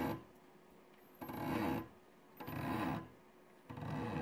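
Small DVD-drive stepper motor buzzing through short back-and-forth moves, about one every second and a bit, its pitch rising and falling within each move, while the current limit on its stepper driver is set with the potentiometer.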